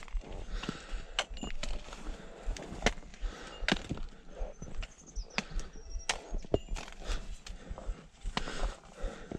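Trekking pole tips clacking against the rocks of a stony trail, mixed with boots stepping and scuffing on stones as a hiker climbs: irregular sharp clicks, roughly one or two a second.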